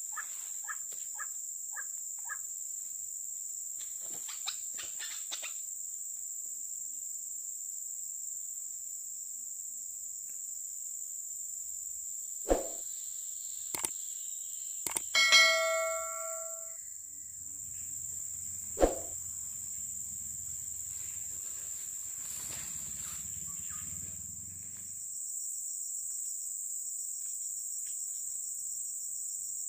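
Steady high-pitched drone of insects. About halfway through come a few sharp knocks and a short ringing tone, the loudest moment.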